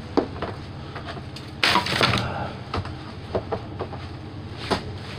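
Plastic bags and packaging rustling and crackling as trash is rummaged through by hand, with scattered sharp clicks of plastic items knocking together and a louder rustle about two seconds in.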